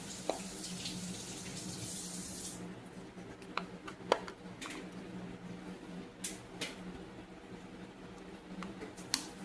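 Scattered sharp plastic clicks as the tabs of a blend door actuator's plastic housing are pried apart, over a steady low hum. A steady hiss runs for the first two or three seconds and then stops.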